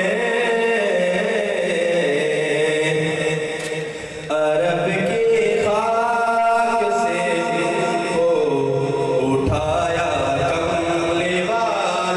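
A man chanting devotional verse into a microphone, unaccompanied, in long held notes that slide in pitch. There is a brief break for breath about four seconds in, then the chant picks up again.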